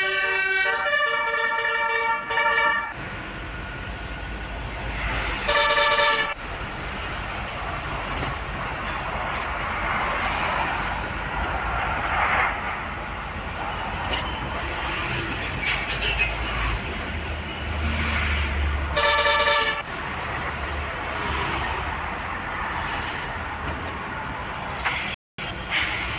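Bus telolet horn (Basuri musical air horn) playing a quick tune of changing notes for the first few seconds, then sounding two loud one-second blasts about six and nineteen seconds in, and a short one near the end. Between the horn calls there is a steady rush of traffic noise with a low engine rumble.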